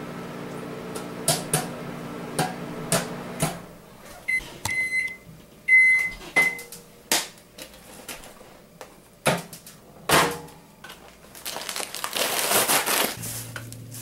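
Sunbeam 700-watt microwave oven running with popcorn popping in sharp cracks, until the hum stops about three and a half seconds in. The oven then beeps several times to signal that the cycle is done. Later come knocks from the door and handling, and a rustle as the popcorn bag is taken out and opened.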